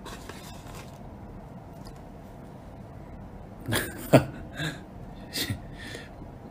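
Low room tone, then about three and a half seconds in a sharp knock from handling, followed by a few short breathy vocal sounds from a man.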